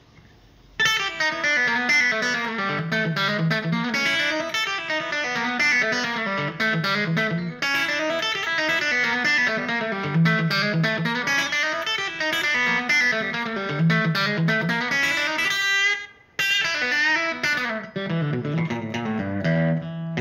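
Electric guitar, a Fender Telecaster Cabronita through a Vox AV15 amp, playing fast open-string chicken-pickin licks in E blues. Several licks are strung together in a quick run of short plucked notes, with a brief break about sixteen seconds in before the playing picks up again.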